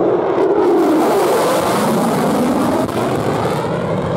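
F-22 Raptor fighter jet passing low overhead, its twin turbofan engines giving loud jet noise. The tone falls in pitch over the first couple of seconds as the jet passes and goes away.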